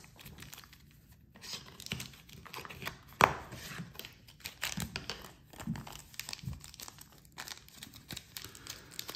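Thin clear plastic zip bag crinkling as hands handle a watch dial inside it: a run of small crackles, with one louder click about three seconds in.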